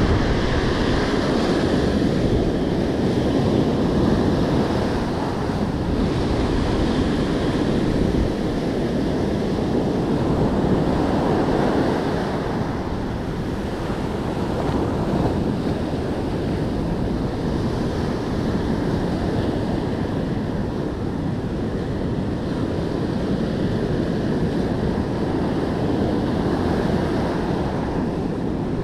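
Ocean surf breaking and washing up the beach in a steady rush that swells and eases with the waves, with wind buffeting the microphone.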